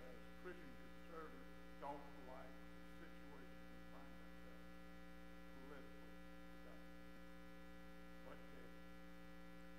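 Steady electrical mains hum in the audio feed, with faint, distant speech now and then from a man talking off-microphone.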